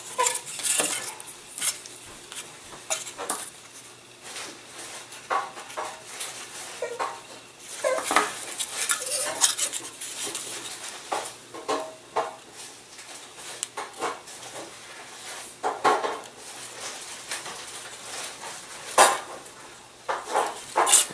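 Small laser-cut wooden model-plane parts handled and set against each other and the work table: irregular light clicks, taps and clatter, with a sharper tap near the end.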